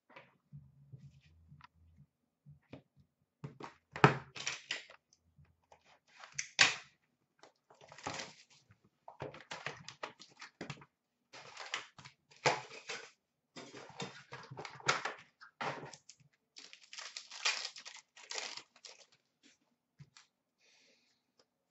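A trading card hobby box being opened and its packs torn and handled: irregular bursts of tearing, rustling and crinkling of cardboard and wrappers, some sharp and clicky.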